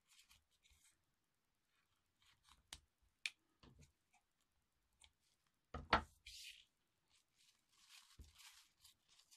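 Satin ribbon rustling and small clicks as a ribbon bow is handled and shaped by hand, with one sharper knock about six seconds in.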